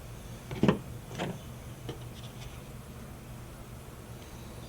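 A few short rubbing scrapes as plastic bumper filler is mixed with its hardener. The loudest comes a little under a second in and a second follows about half a second later, with fainter ones around two seconds in.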